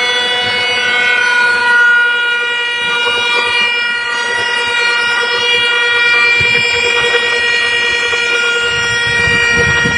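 Mini edge banding machine running, its motors giving a steady, high whine, with a few dull knocks near the end.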